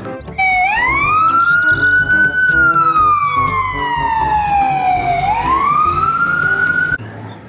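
Ambulance siren wailing over background music: a slow rise, a long slow fall, then another rise before it cuts off shortly before the end.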